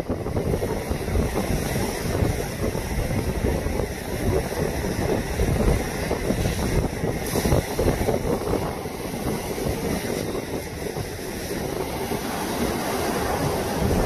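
Strong wind buffeting the microphone over the steady wash of large lake waves breaking against a seawall and rock breakwater, a continuous gusty rumble with no distinct single crash standing out.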